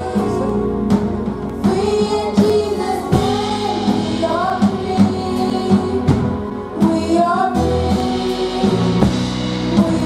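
Children's gospel choir singing, a girl's lead voice into a microphone over amplified accompaniment with a steady beat.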